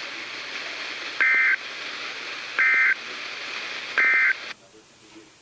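Emergency Alert System end-of-message signal on a weather radio: three short bursts of two-tone data screech, about a second and a half apart, over a steady radio hiss that cuts off just after the third burst.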